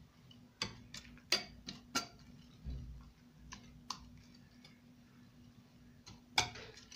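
Wire balloon whisk beating eggs and chopped vegetables in a ceramic bowl, its wires clicking irregularly against the bowl: a cluster of ticks in the first two seconds, a couple more midway, and one sharper click near the end.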